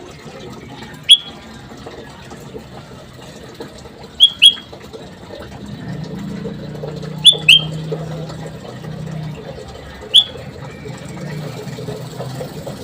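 Bulbul giving short, sharp, high call notes, singly or in quick pairs, about every three seconds. A low hum runs underneath, strongest about halfway through.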